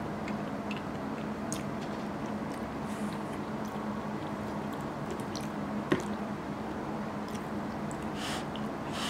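Close-up eating sounds: chewing mouthfuls of curry and rice, with a metal spoon scraping and tapping in a ceramic bowl. One sharp clink comes about six seconds in, over a steady low hum.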